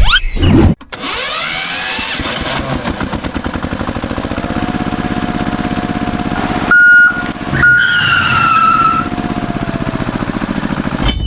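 An engine or motor running with a rapid, even pulsing. A short loud beep comes about seven seconds in, followed by a falling whistle-like tone.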